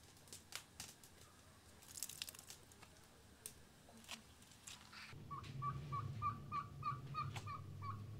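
Faint scattered clicks and taps at first. About five seconds in, a bird starts calling in a quick, even series of short chirps, about four a second, over a low hum.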